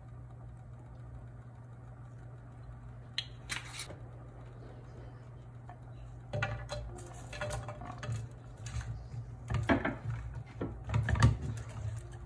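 Tongs scraping sliced garlic off a wooden cutting board into a nonstick frying pan, with repeated clattering knocks and scrapes from about halfway through, loudest near the end. A steady low hum runs underneath.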